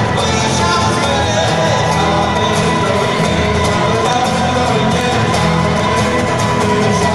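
Live acoustic music from two guitars and a violin playing together, loud and continuous.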